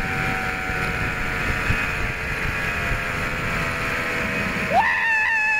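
Zipline trolley pulleys whining along the steel cable, the whine falling slowly in pitch as the rider slows, under heavy wind rumble on the microphone. Near the end the rumble drops away and a rider lets out a long, high whoop.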